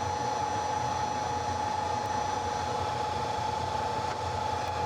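Steady whirring hum of a fan with a constant whine running through it.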